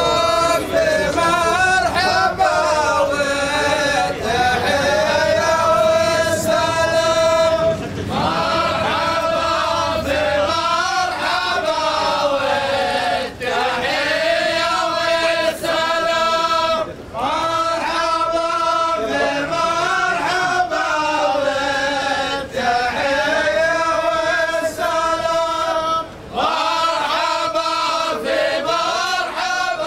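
A group of men chanting in unison in repeated, held sung phrases with short breaks between them: the chant of a Saudi ardah sword-dance troupe.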